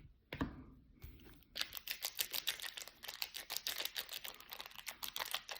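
Trading cards and their foil pack being handled. A quick run of crisp clicks and rustles starts about a second and a half in, typical of flipping through a stack of cards one by one.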